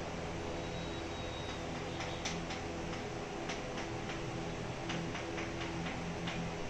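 Chalk tapping and scratching on a blackboard as words and numbers are written: short, irregular ticks over a steady room hum.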